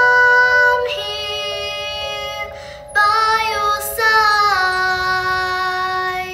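Female lead vocalist singing long, steady high notes in a live rock song, stepping between pitches a few times, with the last note fading out at the end.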